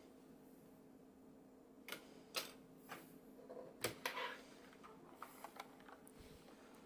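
Keys being pressed on a mechanical keyboard with Gateron Yellow switches and PBT keycaps: a scatter of irregular clacks starting about two seconds in and stopping a few seconds later.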